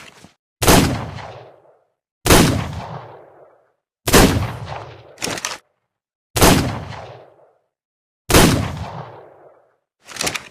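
Revolver gunshot sound effect: five shots roughly two seconds apart, each with a long fading boom. Short clicks are heard near the start, between the third and fourth shots, and near the end.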